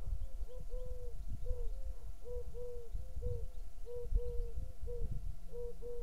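Short, low hooting calls repeated two or three times a second, at slightly different pitches as if several animals are calling together. An irregular low rumble runs underneath.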